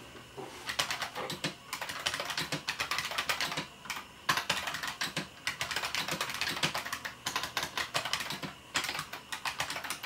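Fast typing on a bolt-modded IBM Model M Space Saving Keyboard, its buckling-spring keys clicking in quick runs broken by a few short pauses.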